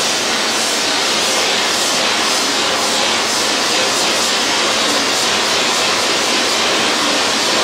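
Micro laser welding setup giving a loud, steady rushing hiss, with faint ticks at a regular pace.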